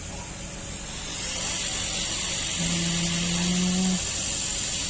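Hot air rework gun blowing on the board, a steady hiss that grows louder about a second in, melting the solder to lift off a laptop hard drive connector. A low steady hum sounds for about a second past the middle.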